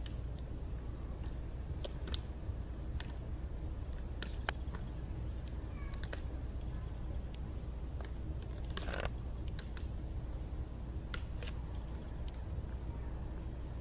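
Antlers of two sparring buck deer clicking and clacking together in irregular sharp knocks, with a longer scrape about nine seconds in, over a steady low outdoor rumble.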